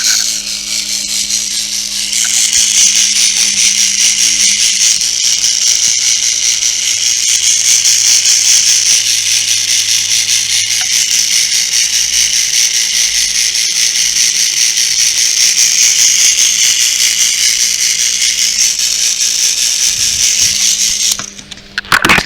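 Small battery-powered electric motor and gears of a Trackmaster narrow-gauge toy engine running with a steady high-pitched whir and fine rattle. It builds up in the first couple of seconds and cuts off suddenly near the end.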